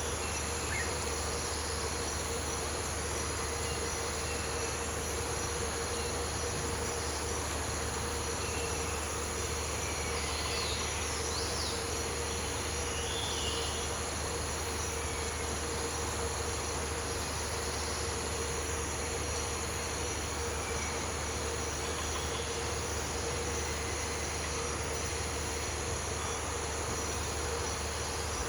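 Tropical rainforest insect chorus: several steady, unbroken drones at different pitches, some high. A few brief chirps come through about halfway.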